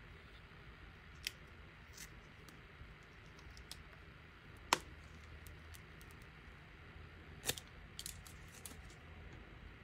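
Scattered small clicks and crinkles of thin plastic protective film and fingernails on a hard plastic phone case as the film is picked at and peeled off. The sharpest click comes about halfway through, with a quick run of smaller ones near the end.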